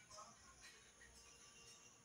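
Near silence: a faint steady hiss with a few faint, brief sounds, none clear enough to name.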